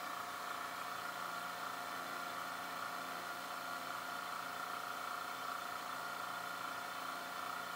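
BigBoi Washr Pro electric pressure washer running steadily at about 1,000 PSI: a constant motor-and-pump whine over an even hiss, measuring about 72 to 73 dB standing over the machine.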